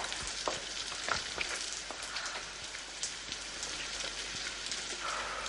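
Steady rain falling on a wet street, an even hiss with scattered louder drops and drips.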